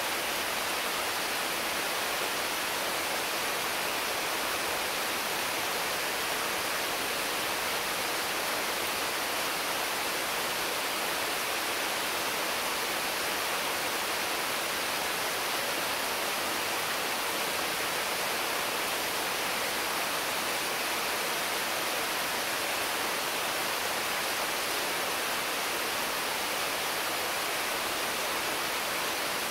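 Intense, constant rain falling on mango, papaya and other trees: a steady, even hiss with no let-up.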